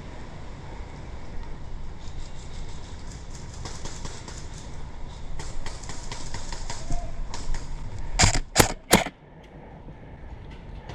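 Airsoft guns firing: scattered faint distant shots, then three loud sharp cracks in quick succession about eight seconds in.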